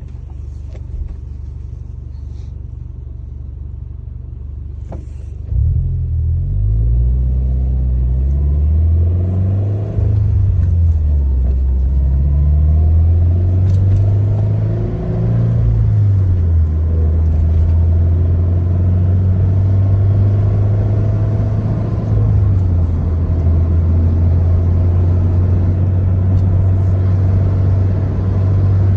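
Subaru BRZ's flat-four boxer engine through a Kakimoto aftermarket exhaust, heard from inside the cabin. A steady low drone at first; about five and a half seconds in it gets louder as the car pulls away, and the engine note rises and drops several times through gear changes. It then settles into a steady cruising drone that steps lower once near the end.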